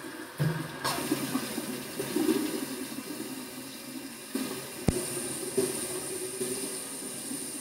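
Water running into a bathroom sink, splashing unevenly as hands work under it, with one sharp click about five seconds in.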